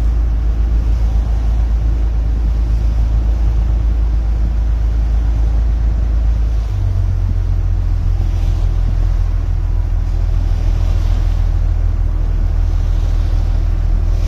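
Motorboat engine running steadily, a low rumble whose note shifts about seven seconds in, with water rushing along the hull.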